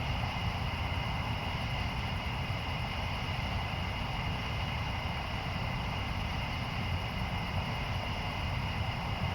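Steady outdoor ambience during a distant lightning storm: a constant low rumble with two unchanging high tones above it, and no distinct thunder claps.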